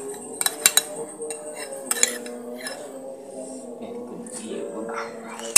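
Cutlery clinking against a bowl of bakso (meatball soup): a quick cluster of sharp clinks about half a second in, another around two seconds in, and a louder clink at the very end.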